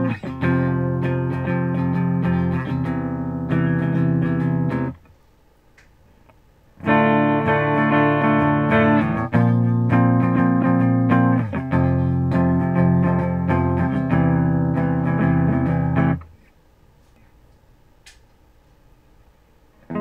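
Harley Benton SC-200 electric guitar played clean through a miked Line 6 75-watt amp, chords strummed and left to ring. The playing stops about five seconds in, starts again about two seconds later, and stops again about four seconds before the end.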